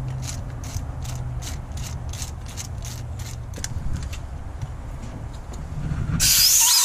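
A ratcheting hand tool clicking steadily, about three clicks a second, as it is worked in a Holley carburetor's threaded hole during a HeliCoil repair; the clicking stops a little before four seconds in. About six seconds in comes a loud, sudden hiss of compressed air.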